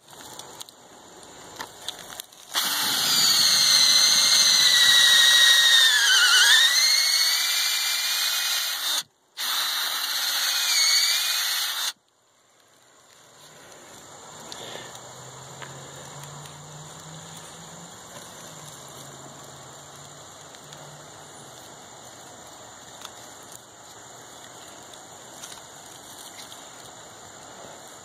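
Ryobi cordless drill whining as it bores into a tree trunk. Its pitch sags under load a few seconds in, it stops briefly, then it runs again before cutting off. The rest is a much quieter, low background.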